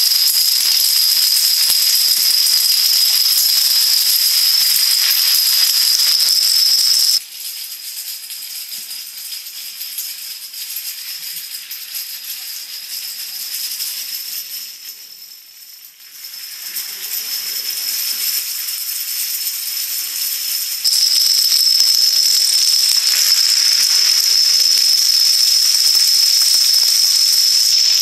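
Plastic dominoes toppling in a long chain reaction: a continuous dense clatter like rattling maracas, with a steady high-pitched whine underneath. The clatter drops abruptly to a quieter, thinner rattle about seven seconds in and comes back at full strength about twenty-one seconds in.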